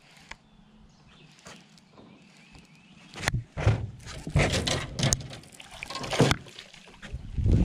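Irregular splashing of water with knocks, starting about three seconds in after a quiet start.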